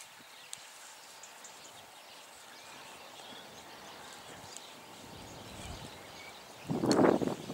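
Quiet outdoor background with faint, short bird chirps. About seven seconds in comes a brief, loud noise, the loudest thing here.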